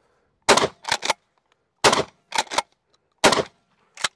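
Three 12-gauge shots from a Rock Island All Gen 12 pump-action shotgun, about a second and a half apart. After each of the first two, the pump is racked with two quick metallic clacks, and a single clack follows near the end.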